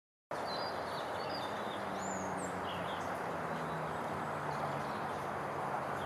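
Woodland birds chirping, a few short high calls mostly in the first half, over a steady rushing background noise.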